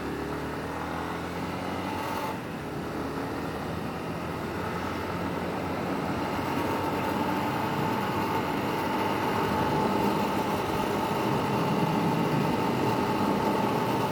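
A vehicle engine and road noise while driving. The engine note rises as it speeds up over the first couple of seconds, then the road noise grows slowly louder under a steady high hum.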